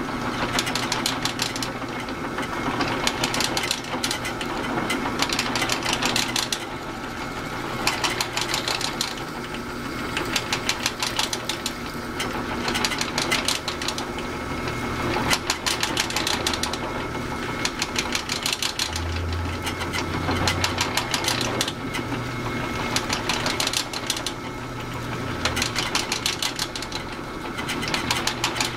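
Drill press running with a type F twist bit boring a deep hole into a UHMW polyethylene block: a steady motor hum under a busy rattling cutting noise that swells and eases every few seconds as the bit is fed in.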